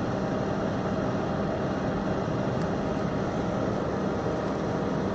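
Steady airy hiss of a hot air rework station's blower running at an even level.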